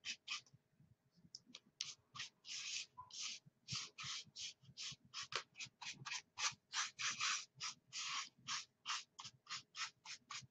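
Paintbrush stroking chalk paint onto a faux pumpkin: quick, scratchy brush strokes, about three a second, after a short lull near the start.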